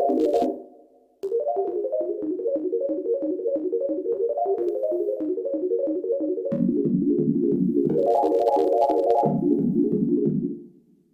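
Novation Circuit Tracks synth patch with a keyboard-like, electric-piano tone playing a fast sequenced pattern of short repeated notes. It breaks off briefly about half a second in, then starts again, moves to lower notes a little past halfway and fades out near the end.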